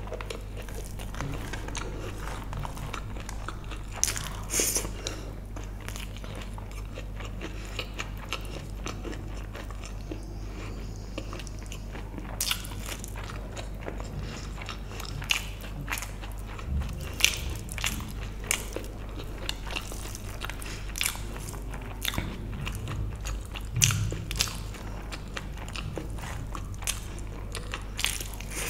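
Close-miked chewing of a mouthful of vegetable biryani eaten by hand: irregular sharp mouth and teeth clicks, a few of them louder, over a steady low hum.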